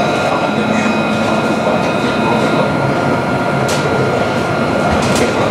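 Tram running along the line, heard from on board: a steady rolling rumble with a constant thin high whine over it and a few short clicks.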